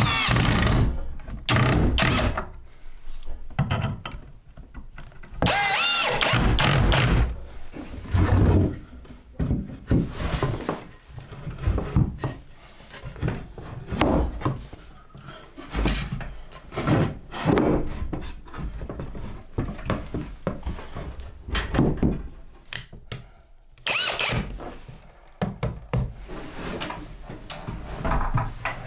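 Wooden boards and table legs thunking and knocking as a hinged wooden table is put together, with a few short bursts of a power drill.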